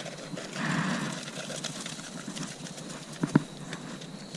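Salt being worked over a raccoon pelt: a brief rustle about half a second in, light scattered clicks, then two sharp knocks a little past three seconds in.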